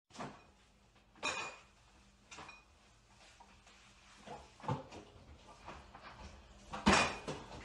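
A fridge being opened and rummaged in: a handful of separate knocks and clicks from the door and the bottles and jars on its shelves, the loudest near the end.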